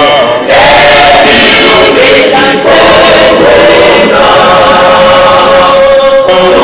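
Choir singing a hymn in long held notes, with short breaks between phrases.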